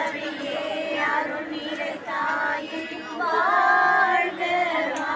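Women's voices singing together, a melody with long held notes that swell loudest about three seconds in.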